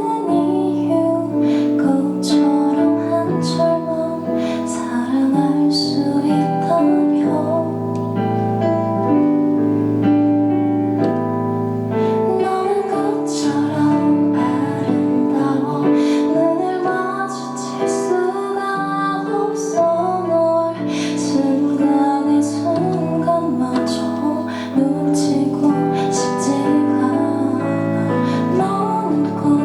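Live band music: a female voice singing a slow song over piano and keyboard accompaniment.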